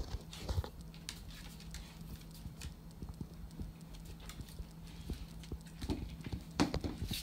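Shiba Inu's and American Cocker Spaniel's claws clicking and tapping irregularly on a tile floor as the two dogs move around, with a red rubber treat toy knocked about on the tiles; the clicks bunch up and grow louder near the end.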